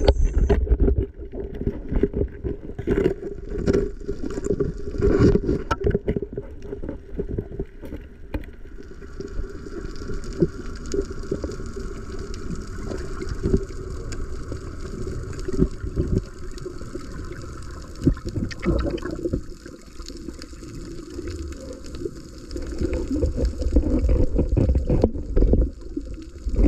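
Muffled underwater sound from a camera in a waterproof housing: gurgling, sloshing water over a low rumble, with many scattered clicks and knocks. A steadier hiss joins about a third of the way in and fades out before the end.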